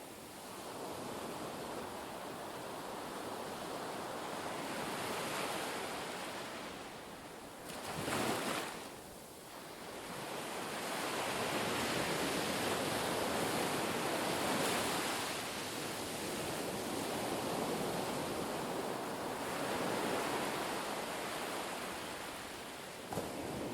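Sea waves washing, a steady rush of water that swells and eases every few seconds, with wind. There is a brief louder surge about eight seconds in.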